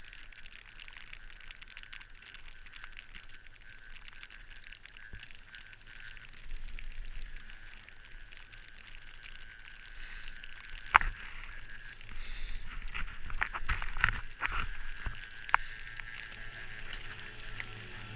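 Chairlift ride: a steady hiss of wind and the moving lift, growing louder in the second half, with a few sharp mechanical clacks from the chair and its cable.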